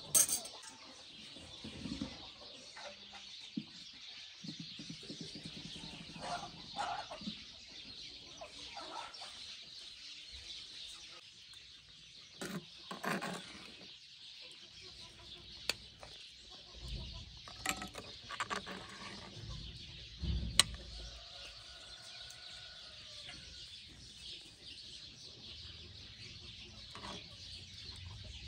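Domestic chickens clucking now and then, with a few sharp clinks of a metal spoon against the serving pot and plate.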